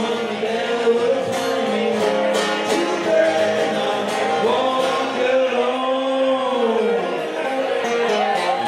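Live band music: a man singing into a microphone over an acoustic guitar, with a long held note about five seconds in.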